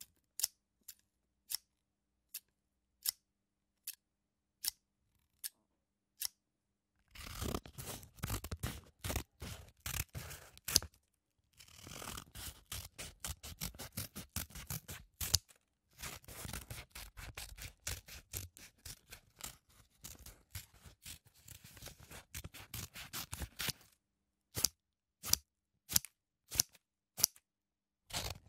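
Scissors cutting paper. First come single separate snips, a little under one a second, then long runs of quick continuous cutting broken by two short pauses, and near the end single snips again.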